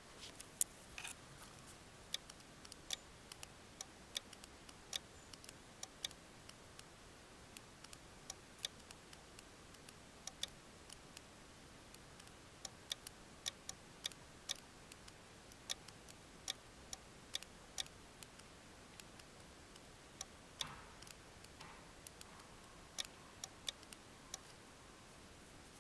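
Sharp little clicks of a small Morse paddle being keyed by hand, coming unevenly at about one to three a second over a quiet background.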